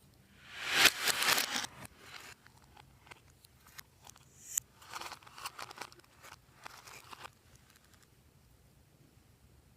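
Crackling, crinkling handling noises from slime being mixed by hand. There is one loud burst about a second in, then a run of smaller crackles from about four and a half to seven seconds.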